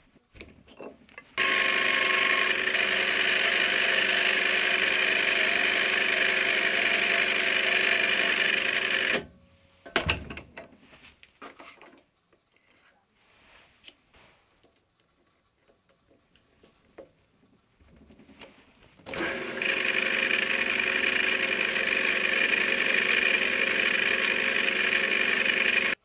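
Mini lathe running at a steady speed with an even motor-and-gear whine, turning a small M4 hex screw held in a collet chuck. It runs for about eight seconds, stops, and after a few knocks and clicks starts again about ten seconds later.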